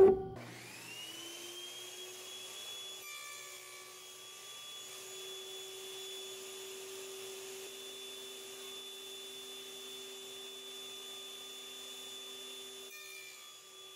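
Table saw motor spinning up with a rising whine, then running steadily at a high whine. About three seconds in, and again near the end, there is a brief rattling buzz.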